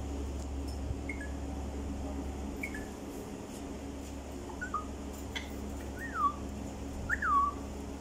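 Alexandrine parakeet giving short whistled calls that fall in pitch, five of them spaced out, the last two the loudest.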